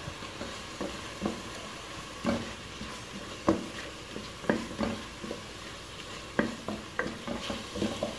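A wooden spoon stirring ground spices into onion, garlic and tomato frying in oil in a granite-coated pot, knocking and scraping against the pot at irregular moments over a steady sizzle.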